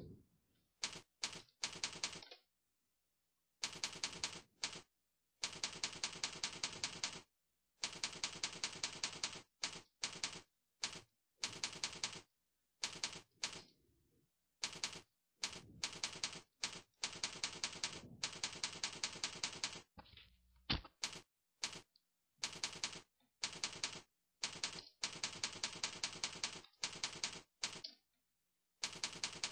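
Typing on a computer keyboard: runs of quick keystrokes, several a second, broken by short pauses.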